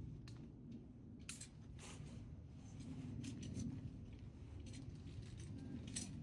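A few scattered sharp clicks and scrapes of climbing gear and rope being handled, over a faint low steady rumble.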